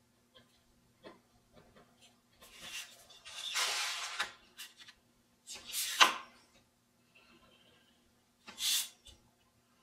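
Black pen scratching across paper and the hand rubbing over the sheet while outlining lettering, in several separate strokes, the longest about two seconds long, over a faint steady hum.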